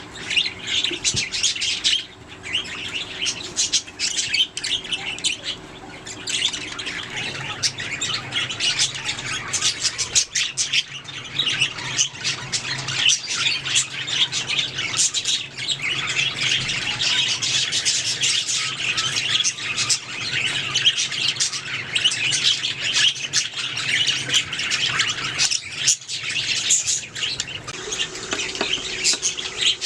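A flock of budgerigars chirping, warbling and squawking continuously, many short sharp notes overlapping.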